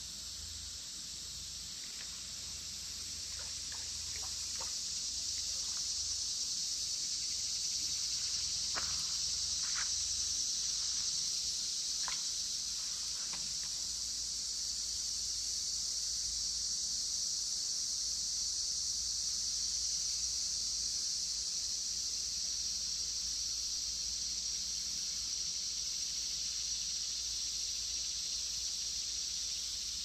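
Steady, high-pitched chorus of summer insects, growing a little louder after the first few seconds. A few short, faint chirps sound over it in the first half.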